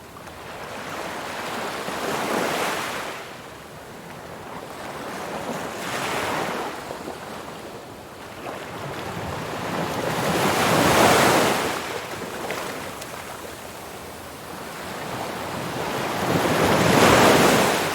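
Ocean waves washing in, each surge building up and falling away, four in a row, the last two the loudest.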